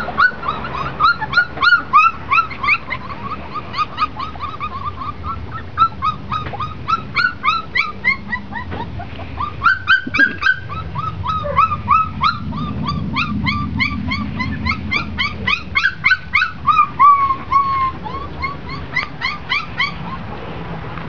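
Border Collie puppies yipping and whining: a rapid string of short, high, falling yelps, several a second, that hardly lets up.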